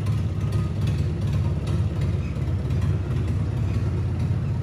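Mahindra tractor's diesel engine running at low, steady revs as the tractor is driven slowly forward.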